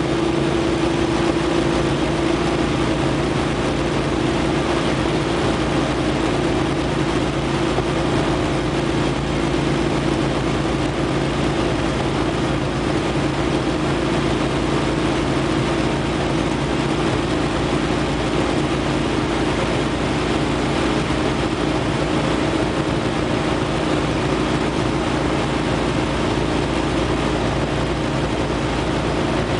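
Light single-engine propeller aircraft in flight: the engine and propeller drone steadily at a constant setting, heard from the cockpit.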